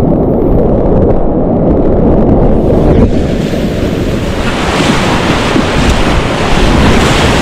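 Loud, steady rush of whitewater rapids around a kayak running the river. It is dull and muffled for the first few seconds, then turns to a brighter, hissing roar from about halfway.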